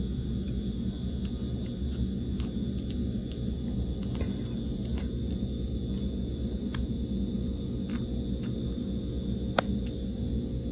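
Kitten chewing a soft treat, its teeth making small irregular clicks over a steady low rumble.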